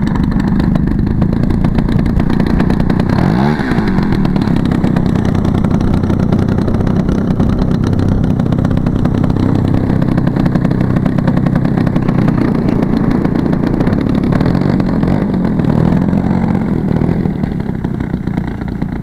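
Large gasoline engine of a 40%-scale Sbach aerobatic RC airplane running steadily, with a brief swing in pitch about three and a half seconds in and the sound easing slightly near the end.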